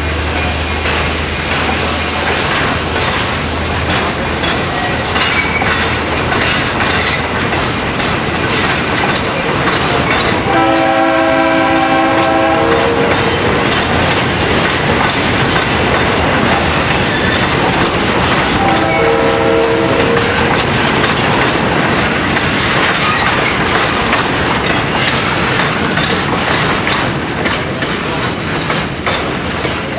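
Ballast train of hopper wagons rolling past on jointed track, a steady rumble with wheel clicks throughout, with a low diesel drone in the first few seconds. The Chinese DF7G-C diesel-electric locomotive's chord horn sounds twice: a blast of about two and a half seconds about ten seconds in, and a shorter one a little before the twenty-second mark.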